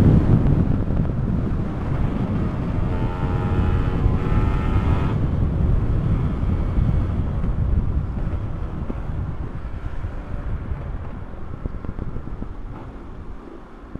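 Motorcycle under way, its engine running under a steady rush of wind on the microphone and road rumble. A pitched engine note rises above it about three to five seconds in, and the whole sound eases off toward the end.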